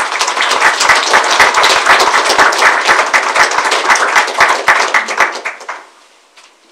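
Audience applauding, clapping that fades away about a second before the end.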